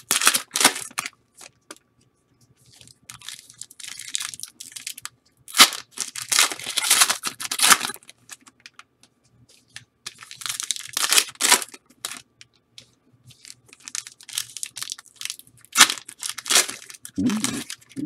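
Foil wrappers of trading card packs being torn open and crinkled, in several bursts of ripping with short pauses between.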